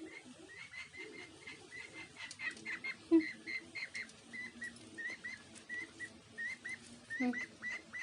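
A bird chirping over and over: short chirps at an even pitch, about three a second. A brief, louder low sound breaks in about three seconds in.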